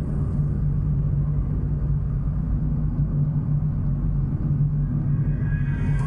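Steady low rumble of engine and tyre noise inside a Chevrolet Astra's cabin while cruising at about 45 km/h, with a constant low drone.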